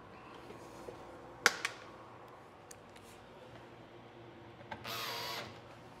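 Cordless drill running in one short burst of about half a second near the end, driving a screw into the fridge's header panel. A little over a second in, two sharp clicks, the loudest sounds.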